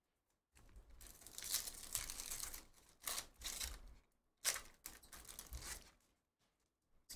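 Foil wrapper of a trading-card pack being torn open and crinkled by hand, in a long rustle followed by two shorter ones.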